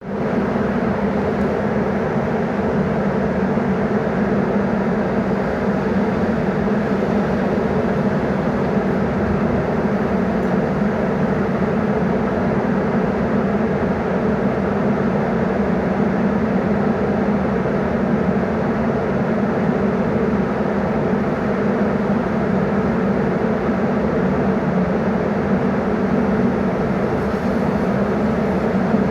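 Ventilation system running: a steady, unbroken rush of air with a low mechanical hum.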